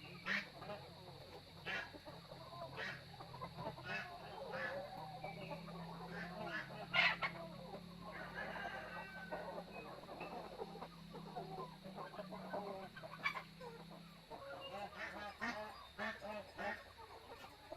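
A flock of chickens and ducks clucking and calling while they eat, with irregular short calls and sharp pecking clicks; one sharp call about seven seconds in is the loudest.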